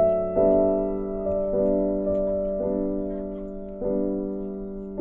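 Slow background keyboard music with a piano-like sound. A new note or chord starts about once a second and fades away before the next.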